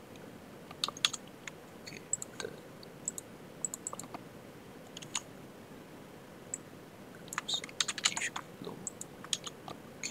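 Typing on a computer keyboard: quick irregular bursts of key clicks with short pauses between them, and a dense flurry of keystrokes a little before the end.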